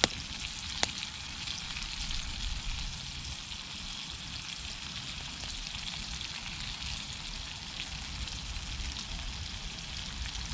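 Potatoes frying in a cast iron skillet, a steady sizzling hiss, with two sharp clicks in the first second.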